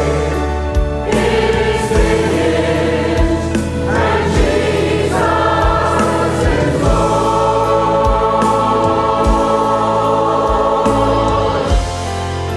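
Church choir singing a gospel worship song with a band, over an even bass drum beat. About halfway through the choir holds one long chord, then drops out near the end, leaving the band playing.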